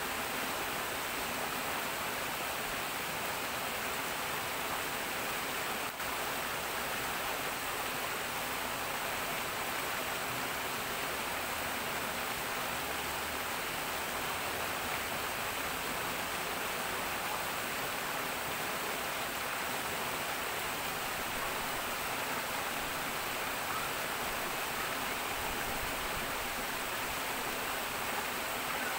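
Water spilling in a steady, even rush into a stone-lined pool, churning white where it enters.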